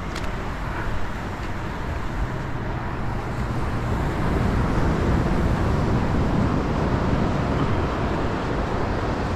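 Steady low rumbling noise of wind on the microphone and surf, rising slightly midway.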